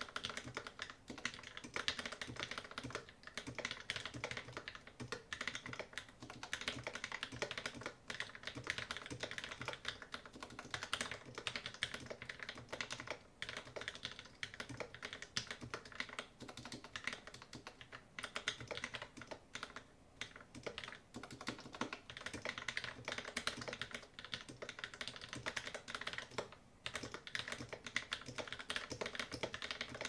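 Continuous typing on a mechanical keyboard with lubed Gateron Black linear switches and band-aid-modded stabilizers: a dense, unbroken run of key presses, with short pauses around two-thirds and near seven-eighths of the way through.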